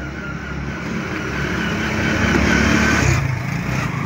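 A motor vehicle's engine running, growing louder to a peak about two to three seconds in, then dropping off suddenly.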